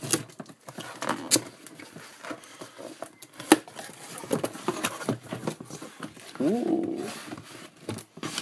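Cardboard shipping box being slit open with a folding pocket knife and its flaps pulled back: scattered rustles, scrapes and clicks of cardboard and paper, with one sharper knock about three and a half seconds in. A brief voice-like sound with a rising pitch comes about two-thirds of the way through.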